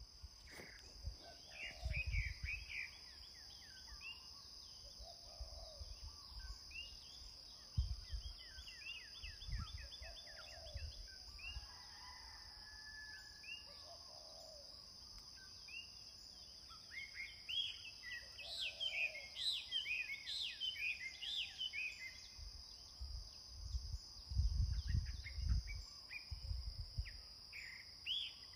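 Birds calling in series of short repeated chirps over a steady high insect drone, with occasional low rumbles, loudest near the end.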